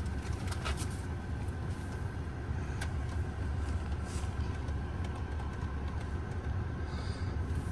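Hyundai Creta's engine idling, a steady low hum as heard inside the cabin, with a couple of faint clicks.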